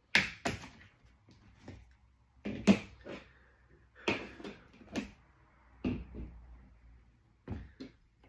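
Sharp plastic clicks and knocks at irregular intervals as a Lenovo ThinkPad T450 laptop is handled: its battery latches are worked and the laptop is turned over and set down on the table.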